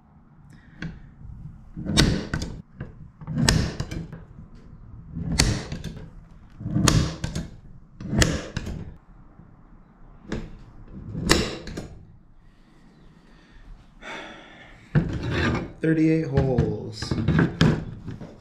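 A hand tool scraping along the edge of a small aluminium plate in about eight separate strokes, one to two seconds apart, followed near the end by a few seconds of busier scraping and handling.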